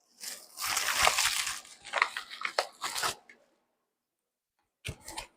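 Packaging being torn open by hand: tearing and crinkling for about three seconds, with a few sharp crackles, then a short rustle near the end.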